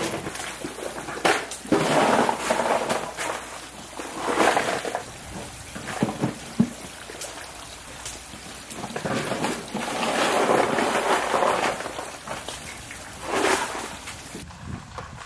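Irregular clatter and rattle of rough oyster shells being handled and shifted in a pile, with scattered sharp knocks.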